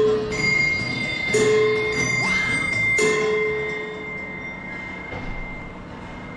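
A bell-like chime struck three times, about a second and a half apart, each strike ringing on and slowly fading.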